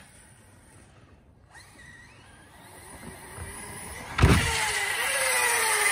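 An ARRMA Outcast 6S RC truck is faint at first, out on a jump. About four seconds in it lands with one loud thump. A whine from its brushless motor and drivetrain follows, with tyre noise, falling steadily in pitch as the truck runs on and slows.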